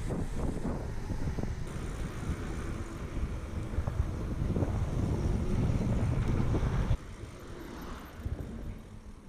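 Wind buffeting the action-camera microphone over the tyre noise of a mountain bike rolling quickly down a paved road, with a few small clicks and knocks; the rumble drops suddenly about seven seconds in to a quieter rolling sound.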